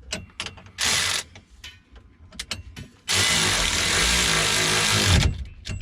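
Cordless power tool driving a bolt in while the shifter is fastened down: a short burst about a second in, then a steady two-second run with a motor whine. Loose clicks of tool and hardware come between the runs, and a low thump follows as the run stops.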